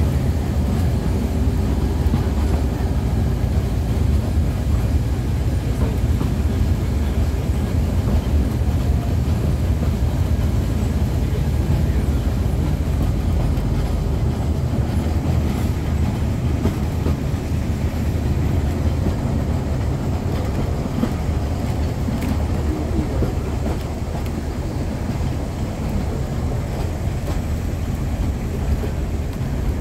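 Lillafüred State Forest Railway narrow-gauge train running, a steady low rumble of the wheels on the track.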